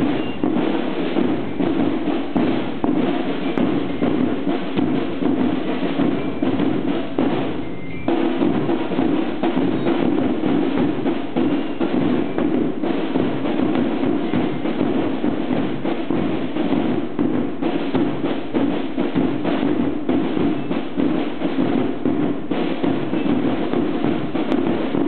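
Banda independiente (marching band) rehearsing a piece: drums beating a steady rhythm under brass, including a sousaphone and trumpet, with a brief break about eight seconds in.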